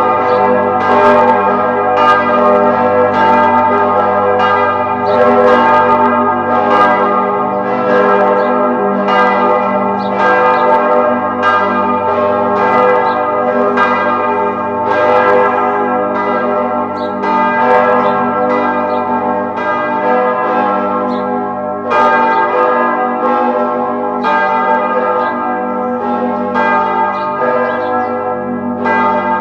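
Church bells ringing in a continuous peal, struck in quick succession about every half second to second, their ringing tones overlapping and sustaining between strokes.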